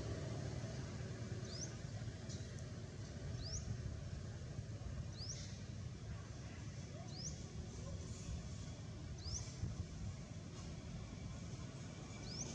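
A small bird repeating a short, high, upward-sweeping chirp about every two seconds, over a steady low outdoor rumble.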